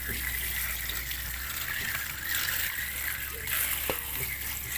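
Tap water spraying steadily onto a heap of grasshoppers in a perforated aluminium colander as they are rinsed, a continuous splashing hiss.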